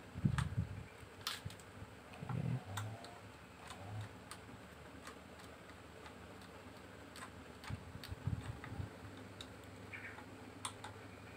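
Phillips screwdriver driving screws into a radiator fan motor's mount on a plastic fan shroud: scattered irregular clicks and ticks of metal on metal, with a few short low knocks against the shroud.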